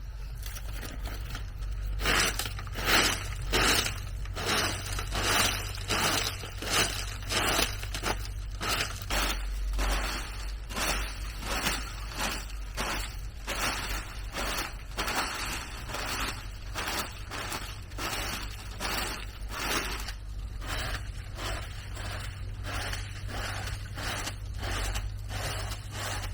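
Repeated scraping strokes, roughly one and a half to two a second, over a steady low hum.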